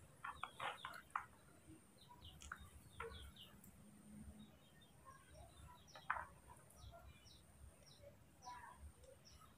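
Near silence with faint, scattered small bird chirps in the background, a few quick ones in the first second and a slightly louder one about six seconds in.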